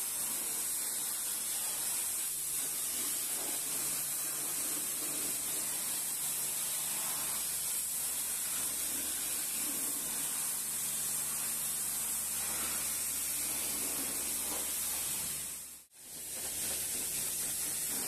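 High-pressure washer wand spraying water onto rubber car floor mats and then a car's wheel: a steady hissing spray that drops out for a moment about two seconds before the end.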